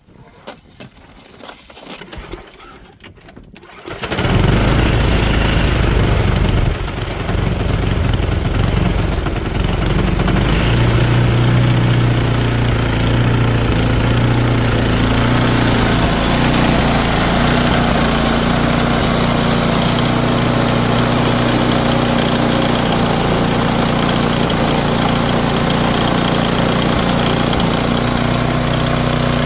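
Sears Craftsman snowblower's small gasoline engine starting about four seconds in and then running steadily and loudly, with a brief dip in level a few seconds after it catches.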